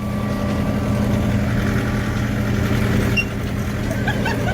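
Excavator engine running at a steady, constant pitch, with faint voices near the end.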